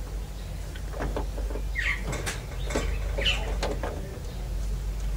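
Scattered small clicks and taps, with a few short squeaks, as a metal lock linkage bar is worked back onto its clip on the door lock actuator inside a Holden Commodore VE door.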